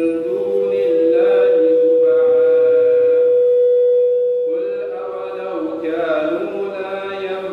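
A young man's voice reciting the Quran in a slow, melodic, chanted style, holding one long drawn-out note through the first half before moving on to further melodic phrases.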